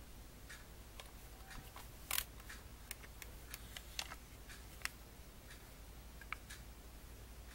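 Light clicks and taps of hands handling a tin eyeshadow palette, with a louder click about two seconds in as the hinged lid opens, over a low steady hum.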